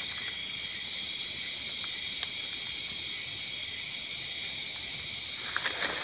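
Steady high-pitched chorus of night insects. Near the end, footsteps start rustling through leaf litter and undergrowth.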